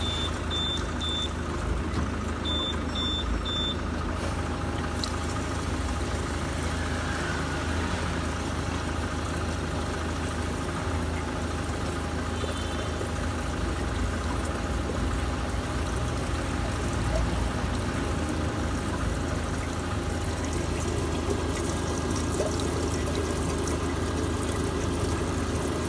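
Vehicle engine running steadily. Two quick sets of three short, high-pitched beeps sound in the first few seconds.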